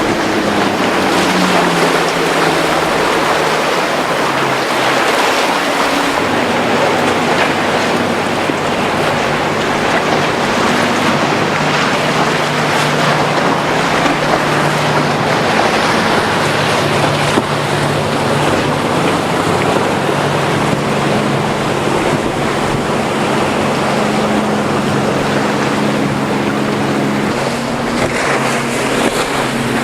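Mercury outboard engines running on a powerboat in rough water, the engine note shifting in pitch over a steady wash of waves and wind.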